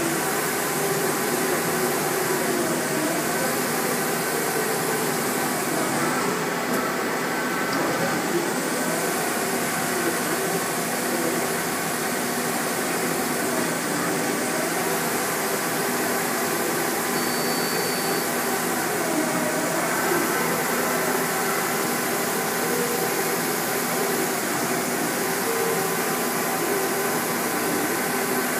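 2005 Fortune VTurn 26 II CNC lathe running: a steady machine whir, with motor tones that rise and fall in pitch several times as the machine moves.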